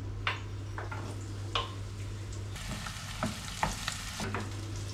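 Diced onions and green chili peppers being added to hot olive oil in a frying pan and stirred with a wooden spoon. A few sharp knocks come as the vegetables go off the cutting board into the pan, then from about halfway they sizzle steadily, with more knocks of the spoon against the pan.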